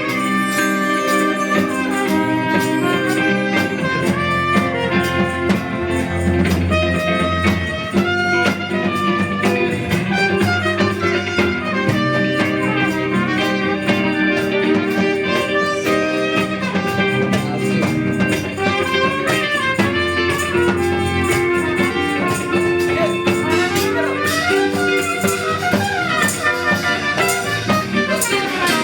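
Live band playing an instrumental introduction in a jazzy funk style: a melodic lead line over a steady bass and drums keeping a regular beat.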